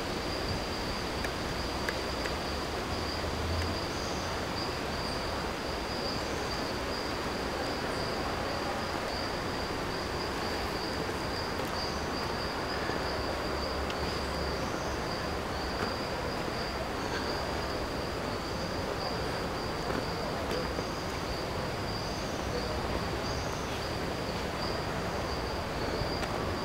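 Insects droning in a continuous high, even buzz over a steady outdoor hiss.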